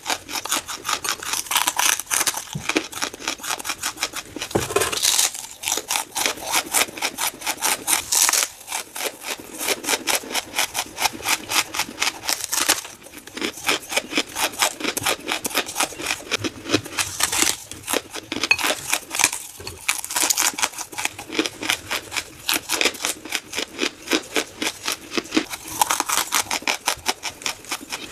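Close-up chewing and biting of lump charcoal: a fast, steady run of crisp crunches, several a second, with slightly louder bites now and then.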